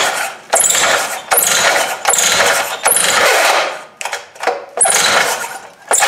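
Stihl TS 350 Super cut-off saw's two-stroke engine being pull-started on starting fluid with the choke closed: a quick series of recoil-starter pulls, about one a second, each a loud whirring rasp as the engine cranks over without running.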